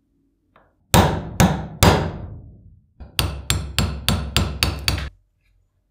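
Hammer striking a steel punch held in the pivot of an old metal saw tooth setter: three hard, ringing blows about a second in, then a quicker run of about eight lighter taps at roughly four a second.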